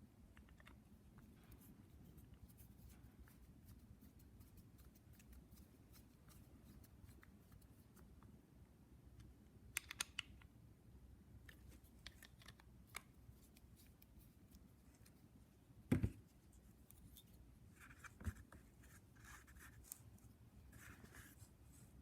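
Faint, scattered clicks and light scratching of small parts being handled, with a sharper knock about three-quarters of the way through and a smaller one soon after.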